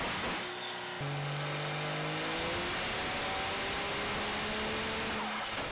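Cummins turbo-diesel pickup engine running hard, its revs climbing steadily, with a faint turbo whistle rising alongside. The sound changes sharply about a second in.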